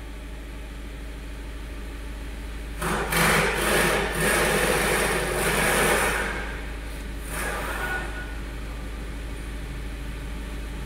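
Skoda Rapid diesel engine running, with a rough, louder spell lasting about three and a half seconds a few seconds in. The engine has an injector knocking problem.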